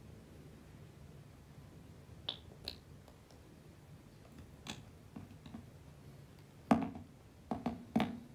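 A few light clicks and taps as a glass serum dropper is worked in and out of its small aluminium bottle, the loudest three near the end.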